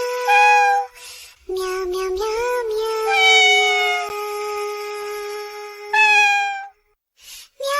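A melody sung in cat meows, in long held, pitched meow notes that step up and down. It breaks off briefly near the end.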